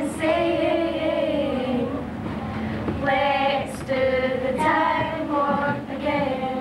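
A group of young, mostly female voices singing together, holding long notes, with a short gap before the next phrases.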